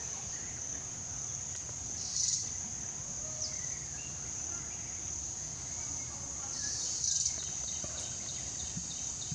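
Steady, high-pitched drone of insects in the trees, swelling briefly louder about two seconds in and again around seven seconds.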